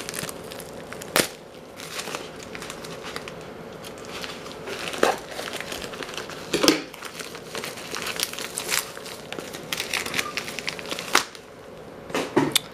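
Plastic padded mailer being cut open with scissors and pulled apart: crinkling and crackling of the packaging with sharp clicks scattered throughout.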